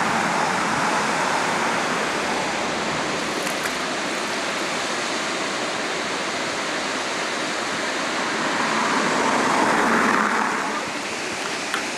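Steady rushing of river water pouring over a low weir. The noise swells about nine seconds in and falls back a second or so later.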